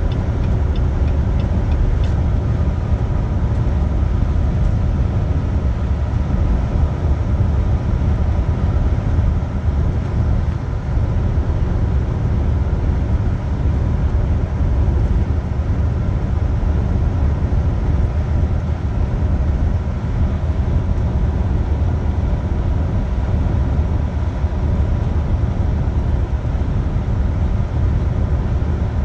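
Steady low rumble of a truck's engine and tyres at highway speed, heard from inside the cab, with a faint steady whine over it.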